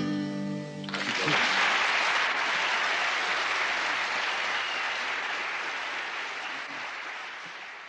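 The last strummed chord on acoustic guitars rings for about a second and is cut off, then an audience applauds, the clapping slowly dying away near the end.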